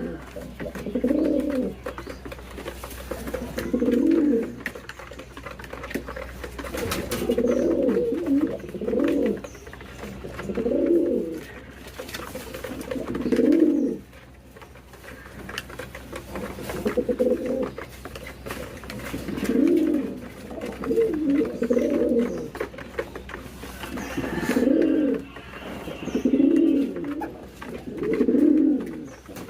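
Domestic pigeons cooing: a run of low, throaty coos repeating every second or two.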